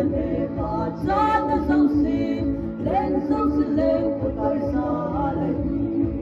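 A woman singing solo through a microphone over a steady musical accompaniment, with sung phrases and held, wavering notes.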